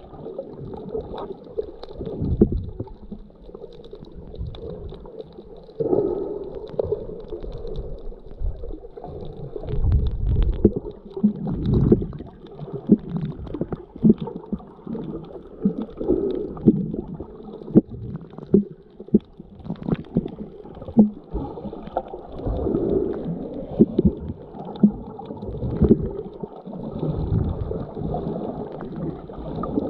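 Muffled underwater sound picked up by a camera held below the surface while snorkeling: low sloshing and gurgling of moving water that swells and fades every second or two, with scattered sharp clicks and knocks.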